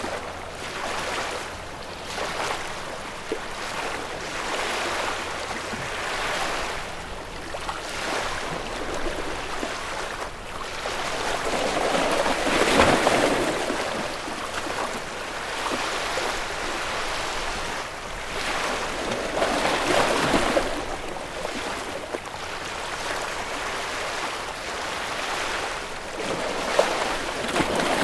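Ocean waves breaking and washing up on shore, swelling and fading every few seconds. Two waves, about midway through and again a few seconds later, break louder than the rest.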